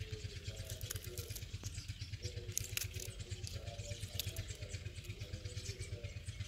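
Green chillies being sliced with a small knife, with a few light sharp clicks of the blade, over a steady low throbbing hum like a small engine running.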